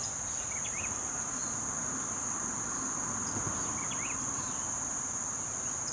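Steady, high-pitched drone of an insect chorus, with a faint short chirp about every three seconds.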